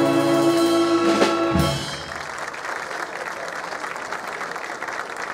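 Wind band holding its final brass chord, which cuts off with a last hit about a second and a half in, followed by audience applause.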